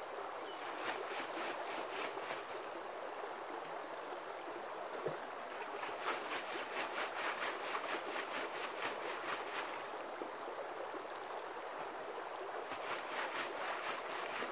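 Gravel and dirt rattling in a bucket-top classifier screen as it is shaken to sift the material, in three spells of quick strokes at about five a second: near the start, through the middle, and near the end. A single knock comes about five seconds in, and a steady creek runs underneath.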